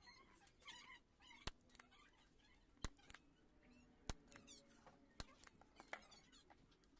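Several sharp clicks about a second apart from a spring-loaded desoldering pump being cocked and fired while the TDA2003 output chip is desoldered. Faint high chirping runs underneath.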